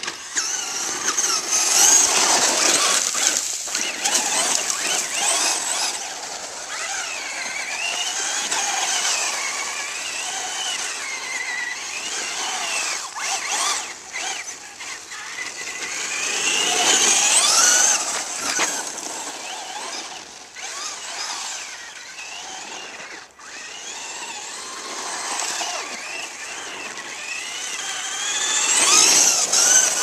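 Remote-control car's motor whining, its pitch rising and falling with the throttle. It swells loudest three times, near the start, about halfway, and near the end, over a hiss of tyres on loose gravel.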